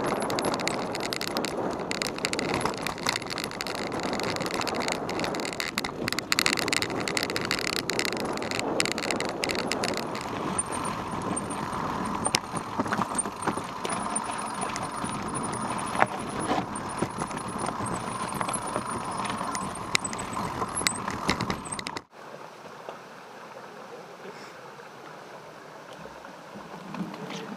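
Mountain bike rattling and clattering over a rocky, stony trail at speed, with a constant rough rush of tyre and riding noise and many sharp knocks. A thin high whistle runs through the middle part. About 22 s in, the sound cuts off abruptly to a much quieter, steady outdoor background.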